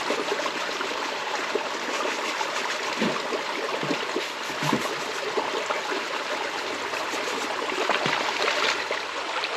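River water running and trickling steadily, with a few short gurgles.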